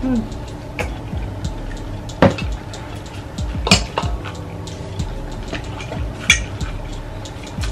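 Cutlery and dishes clinking and knocking as people eat, a few sharp clinks a second or two apart over a steady low hum.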